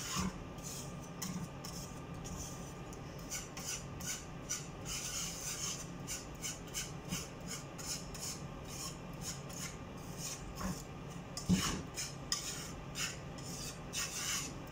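A wire whisk scraping and stirring flour browned in butter around a metal pan, in quick repeated strokes about two or three a second, with one louder knock against the pan late on. This is the toasting stage of asida, the flour stirred over a low flame so it doesn't burn.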